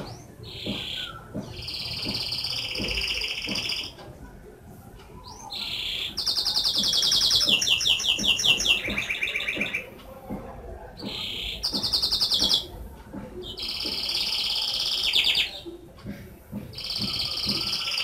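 Domestic canary singing a long song of rapid trills, in phrases of one to three seconds with short pauses between. The loudest, fastest rolling trills come in the middle and step down in pitch from one trill to the next.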